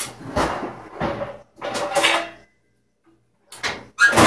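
Metal pans clattering and knocking while someone rummages through a low kitchen cupboard and pulls out a metal pie tin. There is a cluster of knocks in the first two seconds and a louder clatter near the end.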